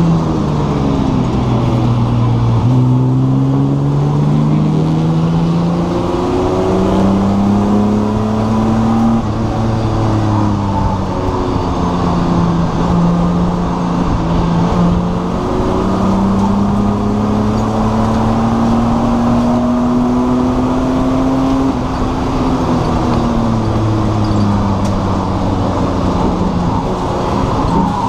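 Race car engine heard from inside the stripped cabin, running hard on track. Its pitch climbs under acceleration, holds, then drops, and this repeats several times through the corners.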